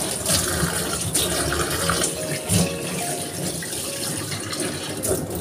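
Kitchen tap running into a stainless steel sink while tofu cubes are rinsed by hand in a plastic tub, the water surging and splashing unevenly as the tub is moved under the stream.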